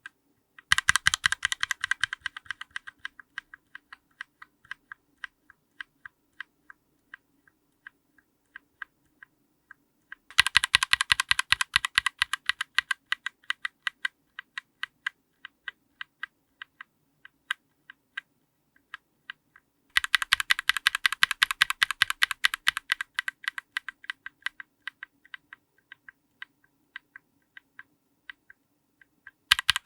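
Linear mechanical keyboard switches under a GMK keycap pressed close to the microphone, one switch after another: about every ten seconds a new run begins with a quick, loud flurry of keystrokes that thins out to slower single presses.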